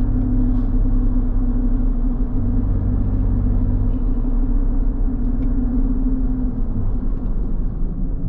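Suzuki Jimny JB64's 660 cc turbocharged three-cylinder engine running steadily, a continuous low drone with a steady hum.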